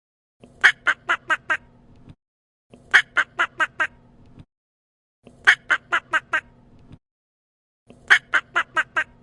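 Duck quacking in bursts of five quick quacks, the first loudest and the rest fading, repeated four times with dead silence between bursts.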